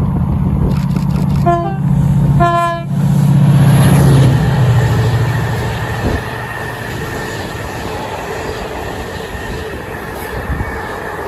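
Class 68 diesel locomotive sounding two short horn blasts about a second apart, over the loud low drone of its engine under power. The engine note swells to its loudest a few seconds in, then settles into a steadier rumble of running and wheel noise.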